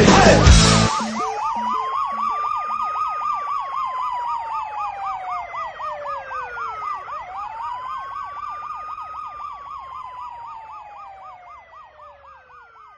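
Siren sound effect at the end of a pop song: a fast warble of about four cycles a second layered over a slow wail that rises and falls, restarting once about seven seconds in. It fades out steadily. The song's music cuts off about a second in.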